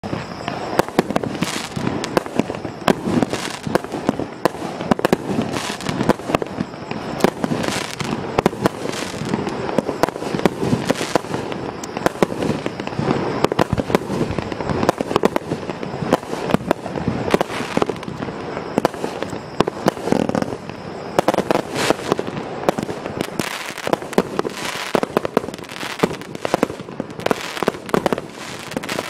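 A 19-shot, 38-calibre fireworks cake firing: many sharp bangs in quick succession, without a break.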